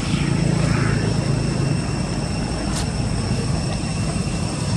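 Steady low droning background noise with faint steady high-pitched tones over it, and a single sharp click about three seconds in.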